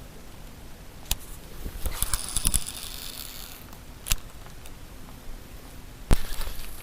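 Close handling noise: a few sharp clicks and knocks, with a brief scraping, rustling stretch about two to three seconds in.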